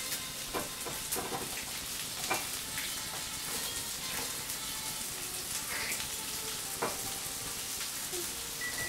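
Food frying in a pan on the stove: a steady sizzling hiss with scattered small pops.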